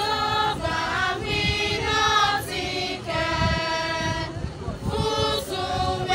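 Women's choir singing a hymn, moving through held notes with one longer sustained note about halfway through.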